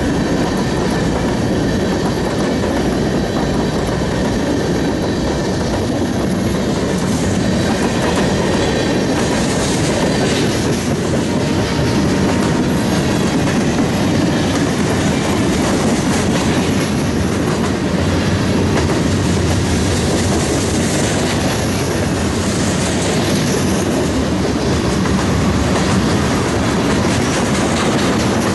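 Freight cars of a mixed manifest train rolling past at close range: steel wheels running on the rails in a loud, steady rush of noise.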